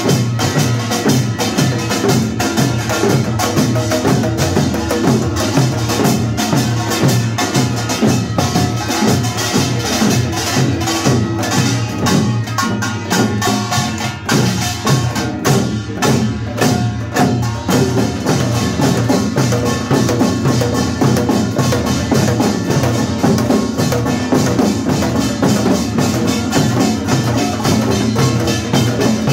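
Korean pungmul percussion ensemble playing together: janggu hourglass drums, buk barrel drums and gongs struck in a fast, dense rhythm. The playing thins out briefly about halfway through, then comes back at full strength.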